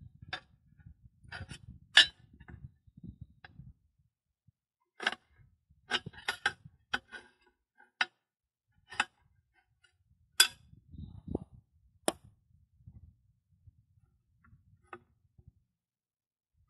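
Steel tire irons clinking and knocking against the wheel rim and each other as they are worked in between the tire bead and the rim: about a dozen sharp, irregular metallic clicks, the loudest about two seconds in and around ten seconds in, with low handling rustle between.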